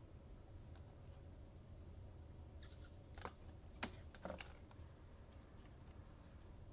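A quiet room with a faint low hum. Between about three and four and a half seconds in come a few soft clicks and taps as a clear plastic card holder is handled and set down; the sharpest comes a little before four seconds.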